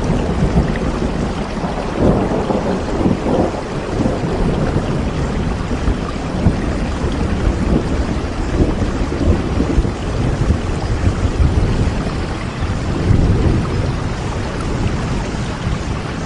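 Steady rain falling, with low rumbles of thunder that swell and fade around two seconds in and again near the end.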